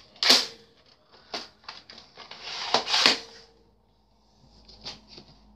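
Plastic toy parts and packaging being handled: short rustles and scattered clicks, the loudest rustles about a third of a second in and around three seconds in.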